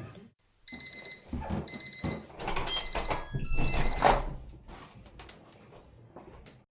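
Alarm beeping about once a second, four high-pitched beeps, then fading.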